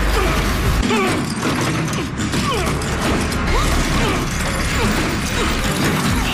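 Clanking, rattling metal mechanism sounds with short squeaks, over tense background music.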